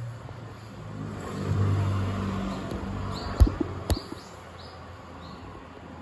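A motor vehicle passes, its engine hum swelling over a couple of seconds and then fading. Two sharp knocks come close together in the middle, and a few faint, short, high chirps of a small bird follow.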